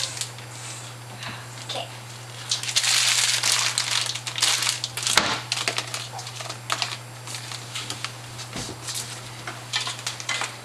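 Packaging crinkling and rustling in the hands, in irregular bursts, loudest a few seconds in, with a few short clicks and knocks.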